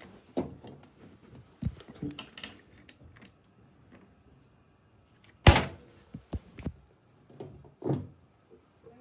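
Clicks and knocks of a Miele Novotronic washing machine's chrome door being handled, with one loud thunk about five and a half seconds in.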